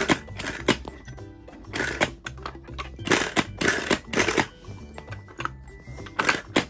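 Plastic clattering and rattling in a series of short bursts as a toy juice mixer is worked by hand, its plastic fruit pieces knocking about inside the chamber. Background music plays underneath.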